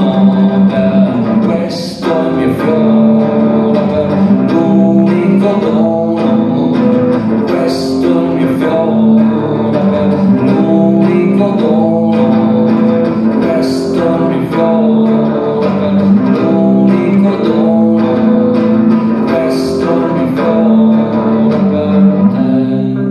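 Amplified electric guitar playing an instrumental passage of chords and picked notes that change every second or two, letting the last notes ring out as the level falls near the end.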